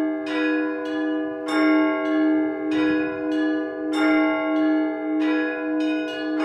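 Orthodox church bells rung by hand: smaller bells struck in a rhythmic pattern, about two strikes a second, over the steady hum of a larger ringing bell, with a heavier stroke about every two and a half seconds.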